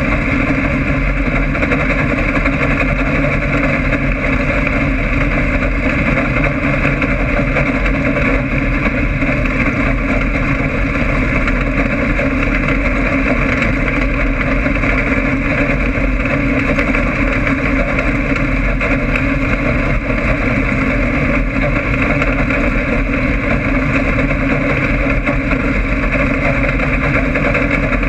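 Dirt-track stock car engine running under power, heard loud and steady through a camera mounted on the car.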